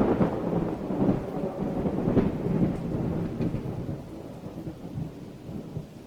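A loud, irregular rumbling noise, like thunder with rain, swelling and easing and growing fainter in the last couple of seconds.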